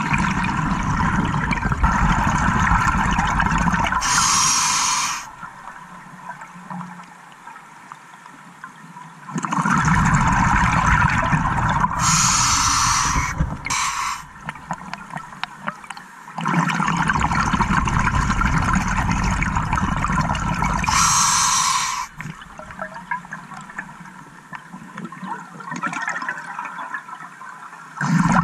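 Scuba regulator breathing underwater: three rounds of exhaled bubbles gurgling and rushing, each a few seconds long with a short bright hiss near its end, separated by quieter pauses.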